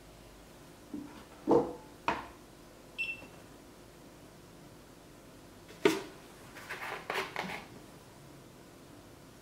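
Kitchen items knocked down onto a tabletop, then one short beep from a digital kitchen scale about three seconds in. A sharp knock and a few seconds of plastic handling noise follow as the milk jug is picked up.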